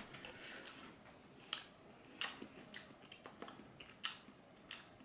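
Mouth sounds of someone tasting sticky honey barbecue-style sauce on boneless chicken: a handful of soft, wet smacks and clicks, spaced about half a second to a second apart.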